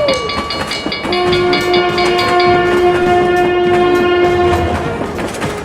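Animated railroad crossing bell clanging rapidly, stopping about halfway through, while a train horn sounds one long steady note from about a second in until near the end, over the rumble of a running train.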